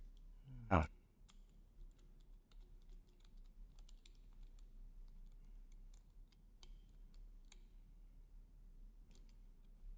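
Scattered small metal clicks and taps as a hex-bit screwdriver turns a bolt into a steel projector mounting bracket, with one short louder thump just under a second in.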